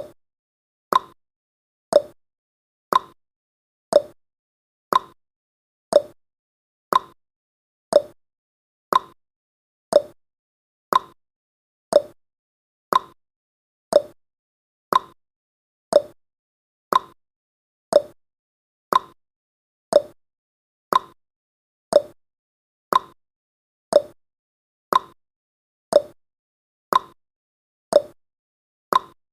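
Clock-style tick-tock sound effect of a countdown timer: one short click every second, alternating higher and lower in pitch, steady and even.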